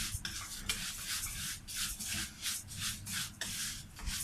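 A spoon stirring rice and vermicelli as they toast in a pot, giving repeated dry scraping strokes about two to three times a second.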